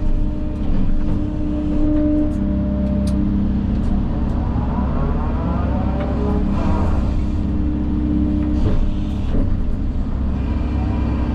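Engine of heavy earth-moving equipment running steadily under working load, with tones that step up and down as the machine works.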